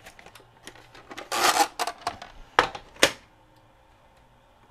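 Hands working in the open tape transport of a Sharp VC-H972 VHS VCR: a rustling scrape a little over a second in, then two sharp clicks around the three-second mark.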